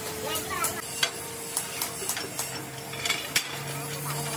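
Scattered sharp clicks and taps over a steady hum, with a second, lower hum coming in about halfway through.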